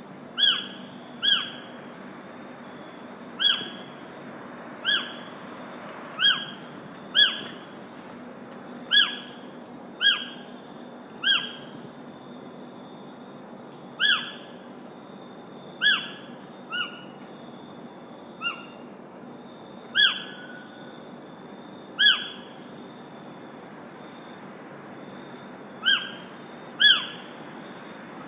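A bird repeating one short, sharp, slightly falling call about seventeen times at irregular intervals of one to four seconds, over a steady background hiss.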